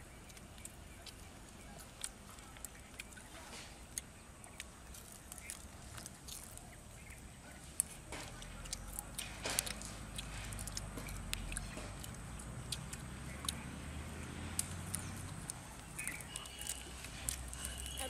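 Scattered small clicks and crunches of people eating fried dove by hand, with a low engine rumble from a vehicle coming in about halfway through.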